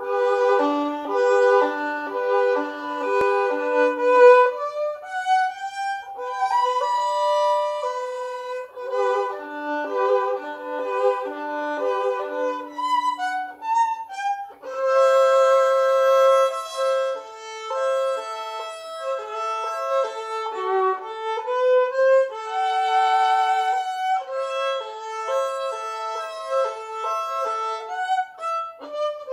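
Solo violin, bowed, playing a melody of separate notes in phrases, with a short break about halfway through.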